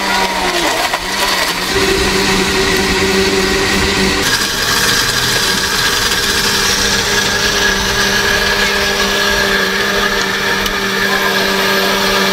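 Electric countertop blender running steadily, crushing ice and watermelon into a smoothie; its sound shifts higher and brighter about four seconds in.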